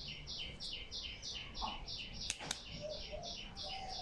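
Steady, rhythmic high-pitched chirping, about three chirps a second, from a small bird or insect. Two sharp clicks come a little past the middle.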